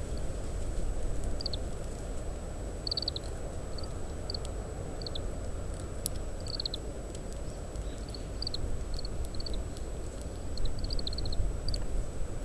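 Oriental greenfinch giving its short contact calls: quiet, high chirps, one at a time or in quick little runs, scattered throughout. Under them is a steady rumble of strong wind, picked up through a parabolic microphone.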